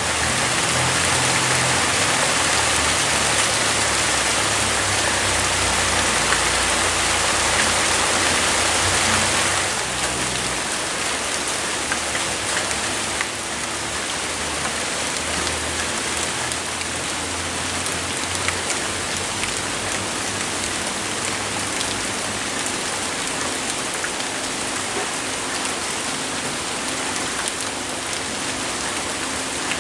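Heavy downpour of rain falling steadily; the sound drops a little about ten seconds in.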